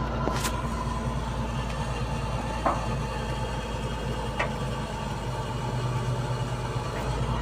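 Hitachi excavator's diesel engine idling steadily, with a few short sharp clicks over it.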